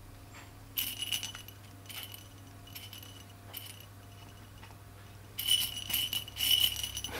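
Small jingle bell inside a soft fabric ball toy jingling as the toy is swung and batted: a few short jingles, then steadier jingling over the last two seconds.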